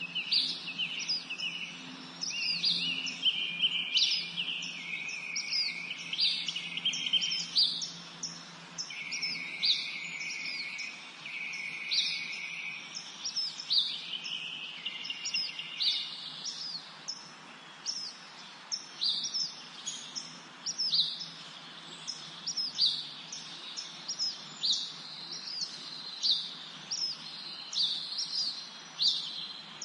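Several songbirds singing and chirping in a spring forest, with short high chirps repeating about once or twice a second throughout. Lower trilled phrases overlap the chirps in the first half and fade out about halfway through.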